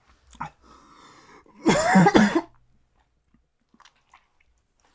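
A man coughing into his fist, his throat burning from a mouthful of ghost pepper hot sauce. A faint raspy breath comes first, then one loud cough with his voice in it about two seconds in.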